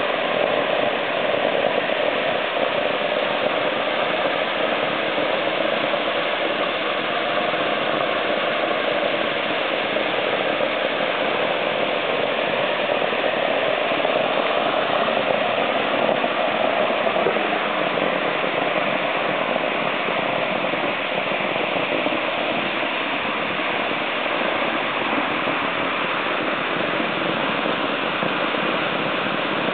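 Fire hydrant opened full for flushing the water mains, its jet of water rushing steadily and spattering across the lawn.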